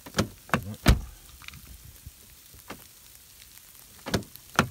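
Sharp clicks and knocks at a car door's keypad and lock, three in the first second and two more near the end, over a faint hiss of wet snow falling on the car.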